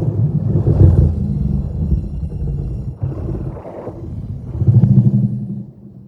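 Monster growl sound effect: deep, rough growls, a long one, a shorter one about three seconds in, and a loud final growl near the end that fades away.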